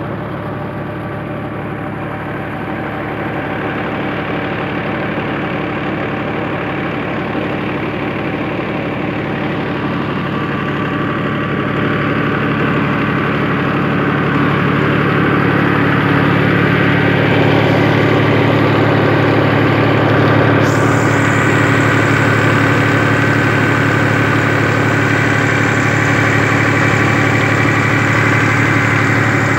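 Massey Ferguson 260 tractor's diesel engine running steadily while driving a tubewell pump. It grows louder over the first half, then holds.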